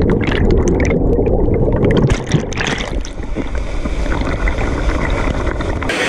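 River water rushing and splashing around a raft, with a heavy low rumble and a run of sharp splashes in the first three seconds.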